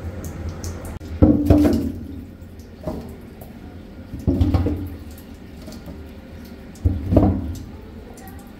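Water running from a hose into a large stainless steel pot, over a steady low hum. Several heavy thuds come as pieces of sheep's head and trotters are dropped onto the metal bottom of the pot.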